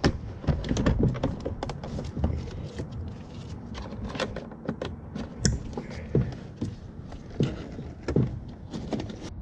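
Irregular plastic clicks and knocks of a van door's wiring connectors being plugged back in, with the loose plastic door trim panel shifting and rattling in the hands.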